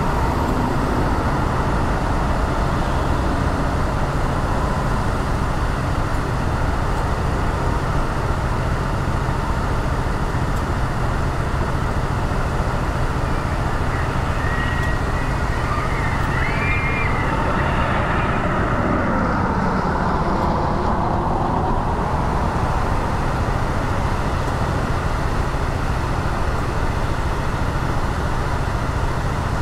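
Car driving on city streets: steady engine and tyre noise with surrounding traffic. Past the middle, a louder passing vehicle sound comes and goes, its pitch falling.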